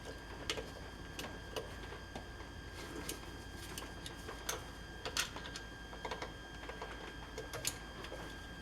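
Irregular light clicks and ticks, roughly one or two a second, over a faint steady high whine and low hum.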